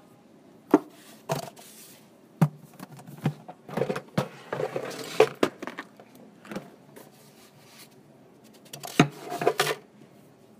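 Small objects and tools being handled: scattered sharp clicks and knocks, about eight in all, with two stretches of scraping or rustling.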